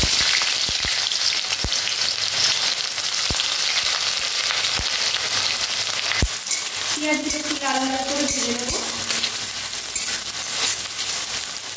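Chopped onions sizzling steadily in hot mustard oil in an aluminium kadai. A spatula stirs them and knocks against the pan about every second and a half during the first six seconds.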